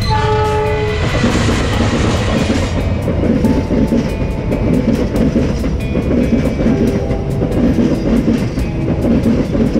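Diesel-hauled passenger train passing close by at speed: the locomotive goes by, then a long rake of coaches rumbles past with wheels clattering over the rails. Background music with a steady beat runs underneath.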